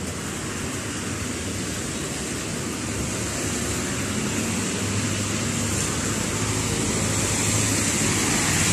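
Street traffic noise: a steady wash of road sound that slowly grows louder, with a vehicle engine's low hum coming in about halfway and getting stronger near the end.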